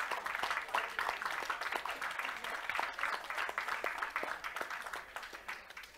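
Audience applauding a live jazz performance: dense, steady clapping that thins out near the end.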